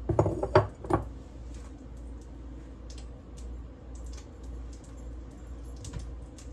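A brief voice sound in the first second, then faint scattered light clicks and taps over a steady low hum.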